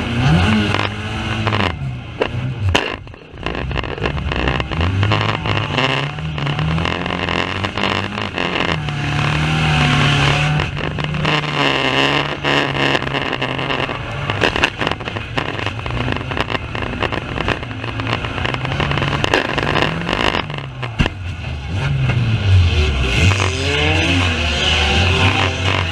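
Banger racing cars' engines revving hard, several at once, their notes rising and falling as they accelerate and lift off, with many short knocks and rattles over the top.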